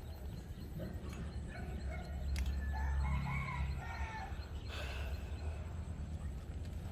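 A rooster crowing a couple of seconds in, over a steady low rumble, with a short burst of noise about five seconds in.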